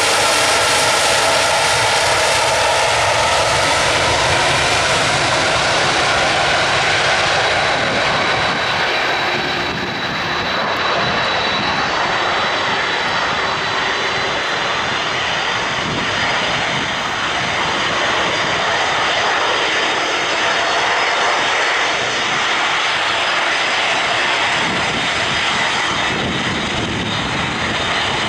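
Boeing 787-8 Dreamliner's twin turbofan engines at takeoff power during the takeoff roll: a loud, steady jet roar. In the first few seconds its whine tones slide downward as the jet passes close by, then a steady high whine runs under the roar as it pulls away down the runway.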